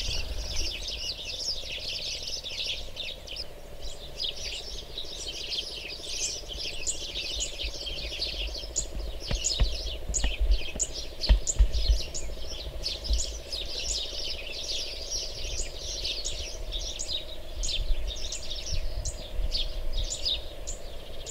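Many small birds chirping and twittering in a dense, continuous chorus, with a faint steady hum and a low rumble underneath.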